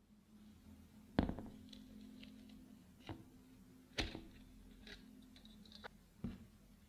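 A few sharp knocks and clinks, the first the loudest, as a metal tart pan is handled: lifted off a wire cooling rack, set on an upright drinking glass to free the tart, and the tart set down on a plastic cutting board.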